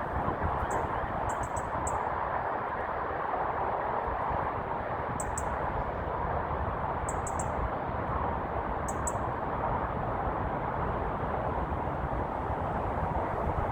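Short, high bird chirps in small clusters, five clusters over the first nine seconds, over a steady outdoor background of rumble and hiss.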